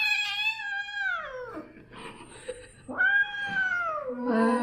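Domestic cat yowling in two long wails, each rising and then falling in pitch: a frightened cat in distress, heart-rending.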